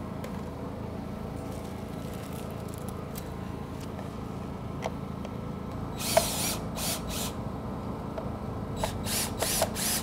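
Cordless drill driving the clamp screws of an electrofusion saddle's underclamp on HDPE pipe, tightening it down. It runs in short bursts, about six seconds in and again near the end.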